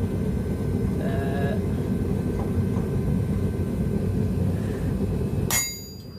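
Two-burner gas forge running with a steady low rush, then a single ringing metal clang near the end, after which the rush drops off sharply.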